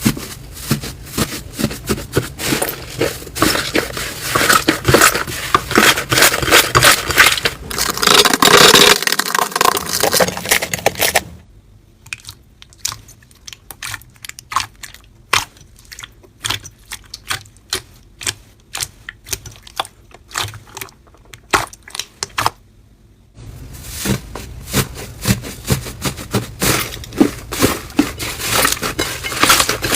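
Hands working slime: rapid sticky clicks and crackling pops as it is squeezed, stretched and poked. A quieter stretch in the middle has only scattered pops, before the dense crackling returns near the end.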